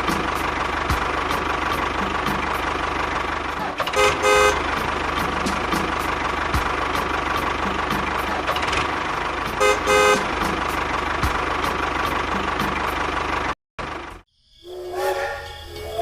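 Vehicle horn tooting in two short bursts of quick beeps, about four seconds in and again about ten seconds in, over a steady running engine with a fast ticking. Near the end the sound cuts out briefly and a multi-toned whistle begins.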